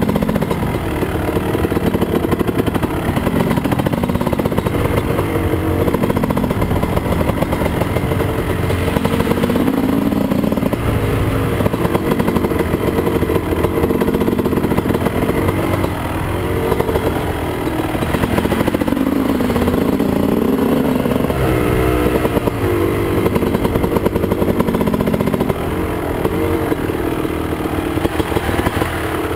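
Dirt bike engine running as it is ridden along a rough trail, its pitch rising and falling as the throttle is worked, heard from the rider's helmet camera.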